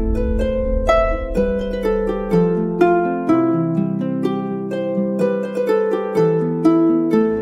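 Instrumental background music: a quick run of plucked, harp-like notes, about three or four a second, over lower sustained notes.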